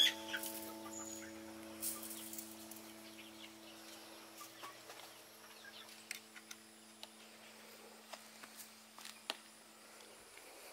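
Faint scattered clucks and calls from farmyard poultry, over a held chord of background music that slowly fades out.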